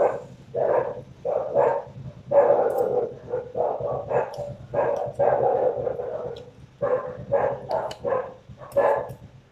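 A dog barking over and over, about two barks a second, with faint clinks of spoons and forks on plates.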